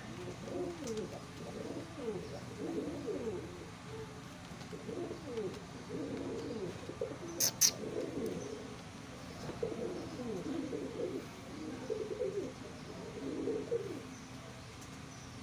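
Fantail (lakka) pigeons cooing over and over, in low rolling calls that overlap at times. Two sharp clicks come close together about seven and a half seconds in.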